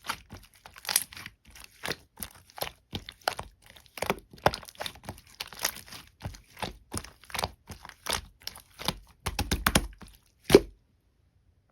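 Mint slime being pressed and squeezed by hand, making a rapid run of sharp clicks and pops, about three a second. There is a quick cluster near the end and one louder pop, then it cuts off suddenly.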